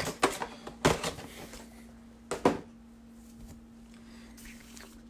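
A few light knocks and taps of trading-card packs and their cardboard box being handled on a tabletop, in the first two and a half seconds. A faint steady hum sits under them.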